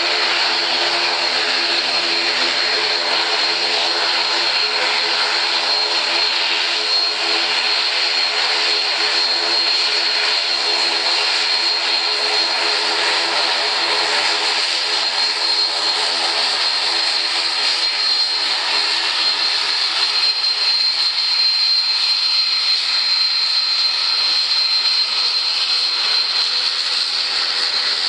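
Boeing 777-300ER's twin GE90 turbofan engines at taxi power: a steady jet whine with a piercing high fan tone over a broad hiss. The high tone grows stronger in the last third as the airliner comes closer.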